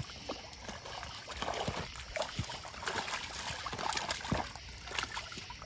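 Irregular water splashing and trickling, with scattered short knocks and clicks.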